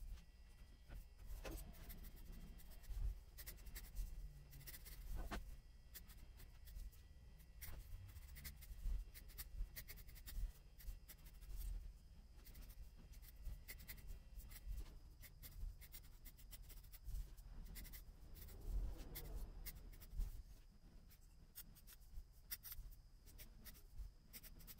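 Scissors snipping the cut yarn pile of a tufted rug, trimming and shaping it: faint, irregular snips throughout.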